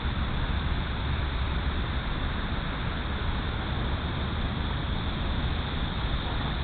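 Steady wind rumble and hiss on a sunglasses camera's built-in microphone, with no clear pitched engine note.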